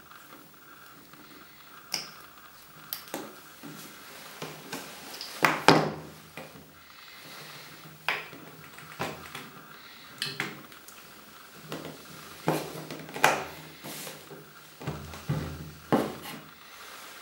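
Handling noise: irregular clicks and knocks as a detector probe's plug is pushed into a dosimeter's socket and the unit and its coiled cable are moved on a tabletop. The loudest pair of knocks comes about five and a half seconds in.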